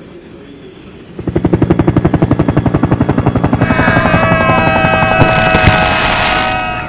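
Helicopter sound effect: rapid, even rotor chop, about ten pulses a second, comes in loud about a second in, and higher whining tones, some falling in pitch, join it over the second half.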